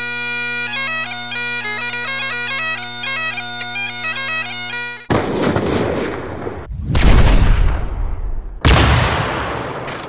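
Bagpipes playing a melody over their steady drones for about five seconds. Then a slow-motion ballista sound effect follows: a rushing noise, then two loud hits about two seconds apart, each dying away slowly.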